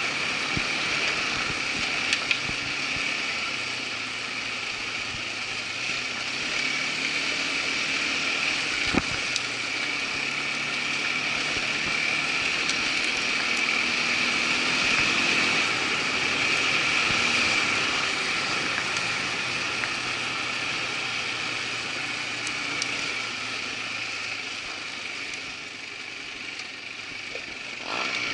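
Irbis ATV 200 quad bike engine running steadily while riding, its pitch rising and falling gently with the throttle, with a single sharp knock about nine seconds in.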